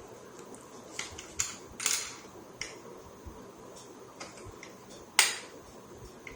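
A handful of short metallic clinks and knocks from hand tools and metal parts being handled and set down, with the loudest knock about five seconds in.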